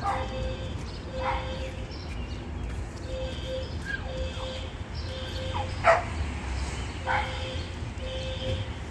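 Fire alarm beeping in repeating groups of short beeps, the three-beep pattern used for evacuation. A dog barks sharply a few times over it, loudest about six seconds in.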